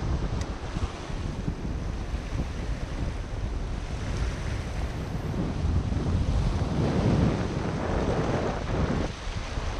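Ocean surf breaking and washing over a rocky reef edge, with wind buffeting the microphone. A wave surges louder about seven seconds in.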